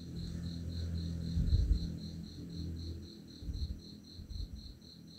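Steady high-pitched insect chirping, about four to five chirps a second, over soft low thumps and rustling from hands working yarn with a crochet hook, the thumps strongest about a second and a half in.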